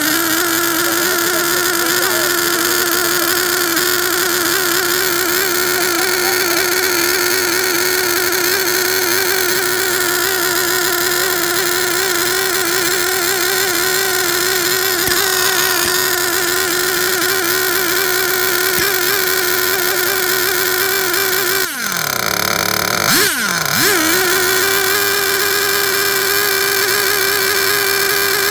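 OS Max R21 3.5 cc two-stroke nitro glow engine in an RC car, held at a steady high-pitched scream while it is run in rich on its factory carburettor setting. About two-thirds of the way through, the revs drop sharply and recover twice in quick succession.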